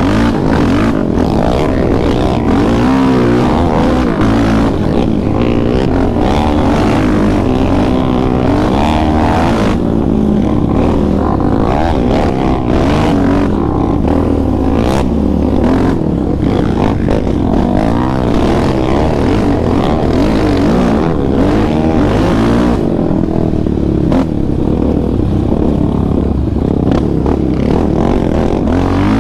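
A Yamaha Raptor 700R sport quad's single-cylinder four-stroke engine with an aftermarket Monster exhaust, revving up and down continually as the quad is ridden along a dirt trail. It is heard from on the machine itself.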